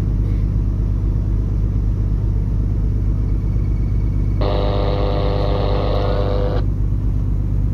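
Steady low drone of a ship's running machinery. About four and a half seconds in, a steady pitched tone sounds for about two seconds and cuts off sharply.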